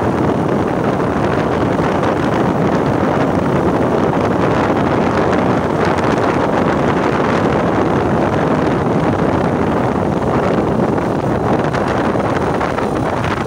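Steady rush of wind over the microphone mixed with the running noise of a small open vehicle on the move, with no breaks or changes.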